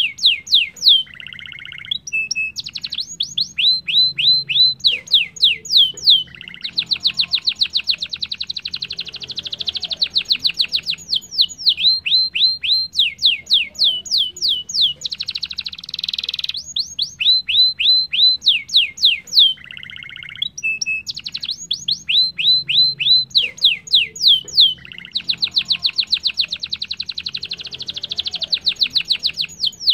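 Domestic canary singing a long, continuous song: quick runs of repeated downward-sliding whistles alternate with long, fast rolling trills, each phrase lasting one to a few seconds before the next begins.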